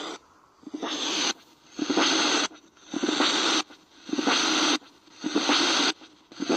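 Repeated bursts of radio static hiss, about one a second, each switching on and off sharply: a ghost-hunting spirit box sweeping through radio stations.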